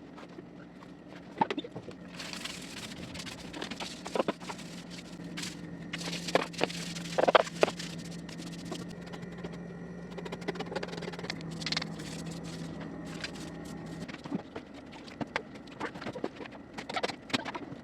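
Scraping, knocking and clatter of floor-cleaning work under a refrigerator, over a steady low hum that stops about fourteen seconds in.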